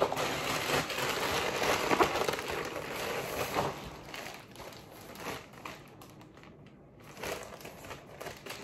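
Packaging crinkling and rustling as a mail-order parcel is handled and unwrapped. It is loudest for the first few seconds, goes quieter, then picks up again briefly near the end.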